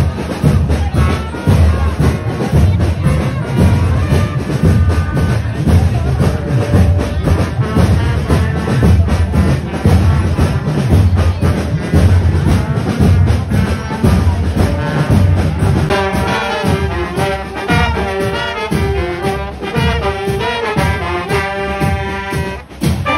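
Marching band playing in the street: a heavy, loud low beat for most of the stretch, with brass, trombones and saxophones, whose melody stands out clearly for the last several seconds.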